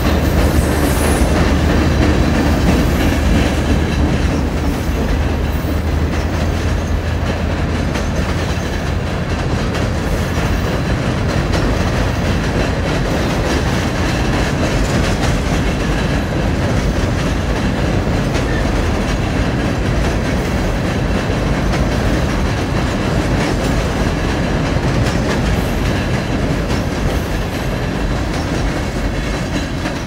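A freight train of empty steel hopper cars rolling across a steel girder railroad bridge overhead: a steady rumble with the clatter of wheels over the rails, starting to die away at the very end as the last car crosses.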